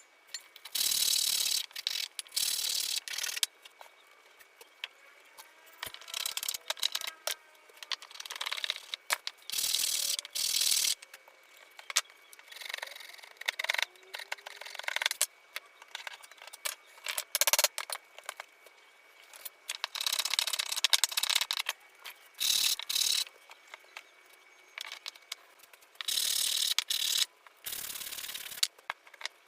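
Sped-up workshop sounds of hand work on wooden shutter parts: a string of short, noisy scraping and rubbing bursts, each under about a second and a half, with quiet gaps between.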